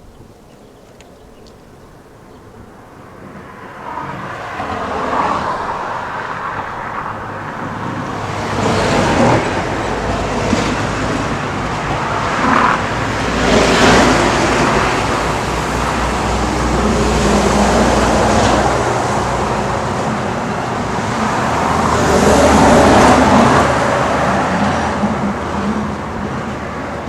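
Road traffic: motor vehicles passing one after another, building up from about four seconds in, with a low engine drone underneath and the loudest passes around the middle and near the end.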